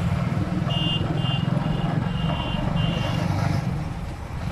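Engine of a moving road vehicle running steadily at cruising speed, with a series of five short high-pitched beeps in the first three seconds.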